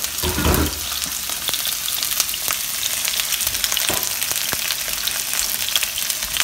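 Chicken breasts frying skin side down in a smoking-hot frying pan: a steady sizzle with constant fine crackling. A brief low thud about half a second in.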